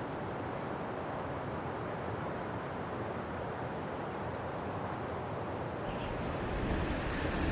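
Steady rain, dull and without high hiss at first; about six seconds in a brighter rain hiss comes in and the sound grows a little louder toward the end.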